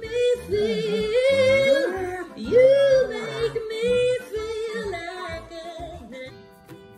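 A curly-coated dog howling along in long, wavering, song-like notes that slide up and down in pitch. Near the end the howling stops and a plucked-string tune comes in.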